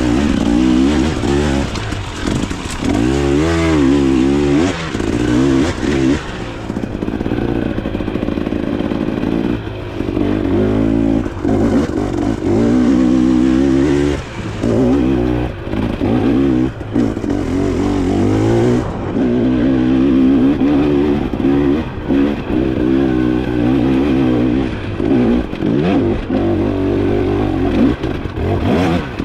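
Dirt bike engine being ridden hard off-road, its pitch rising and falling over and over with throttle changes, with brief drops as the throttle is closed.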